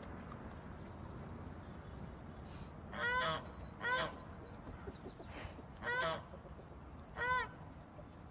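A goose honking four times, short calls spaced a second or two apart, over a steady background hiss.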